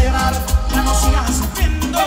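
Live amplified band music: a heavy bass and drum beat with a wavering instrumental melody line over it, heard from amid the crowd.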